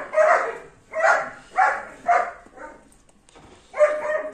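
Nursing newborn puppies whining and squeaking in short, pitched cries, about two a second, with a pause before one more cry near the end.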